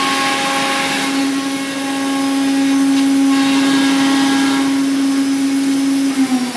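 Omnitech nested-base CNC router's spindle running at one steady high pitch over the hiss of its dust extraction while it routes sheet stock. Just before the end the pitch begins to fall as the spindle slows.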